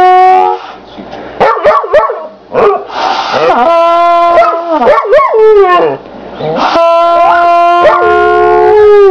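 A trumpet plays three long held notes. A dog howls along between and over them, its howls sliding up and down in pitch.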